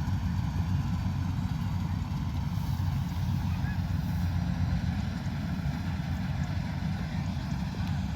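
Combine harvester engine running steadily under load, a constant low rumble with no change in speed.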